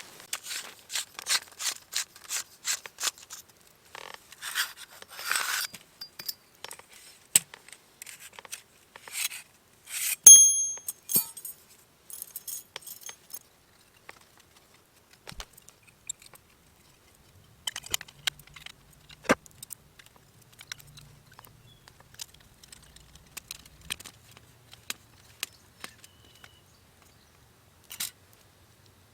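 Metal objects being handled: a quick run of clicks and scrapes, then a single short metallic ring about ten seconds in, followed by scattered lighter clicks.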